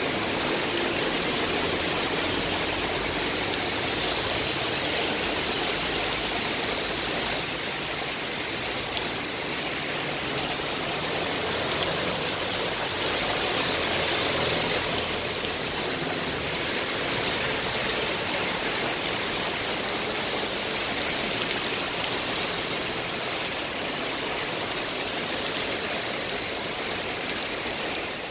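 Heavy rain pouring steadily onto wet pavement and road, a dense hiss that swells a little a few seconds in and again about halfway through.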